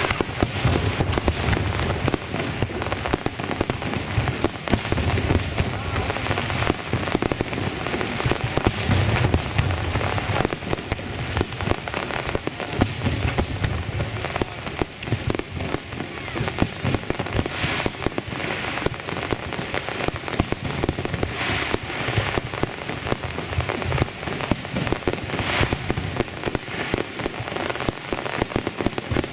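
Fireworks display: aerial shells bursting one after another with no let-up, deep booms under dense crackling.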